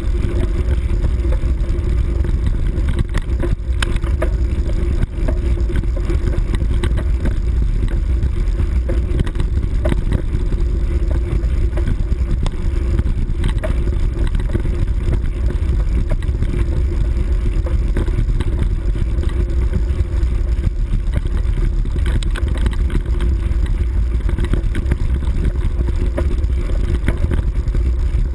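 Small off-road vehicle's engine running steadily at cruising speed over a bumpy grass track, with a heavy low rumble and scattered knocks from the ride.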